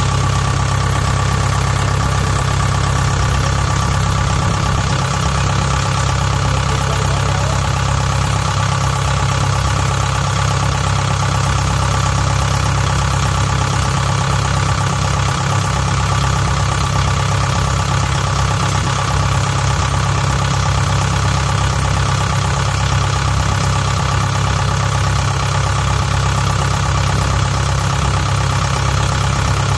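The original diesel engine of a Kubota DC60 combine harvester idling steadily, heard up close in the open engine bay.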